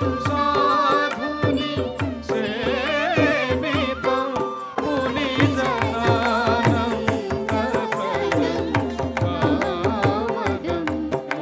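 Odissi dance music: a singer's wavering, ornamented melody over melodic instruments, driven by a dense, steady rhythm of hand-drum strokes.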